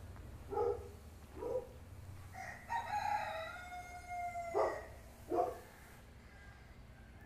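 A rooster crowing: two short calls, then one long drawn-out call lasting about two seconds that drops in pitch at its end, then two more short calls.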